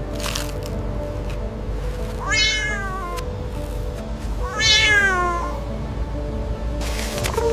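A cat meowing twice, each meow about a second long and falling in pitch, over background music.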